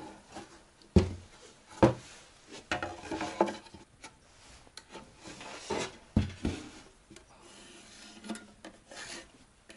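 Pencil scratching along a steel ruler and square as cut lines are marked on a plywood box, with a few sharp knocks of wood and metal as the box is turned over and the ruler is set down.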